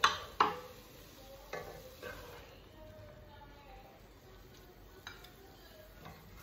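Spatula scraping and knocking against a large aluminium cooking pot as sautéed chopped vegetables are stirred and scooped out. A few sharp strikes come in the first two seconds, then fainter scrapes.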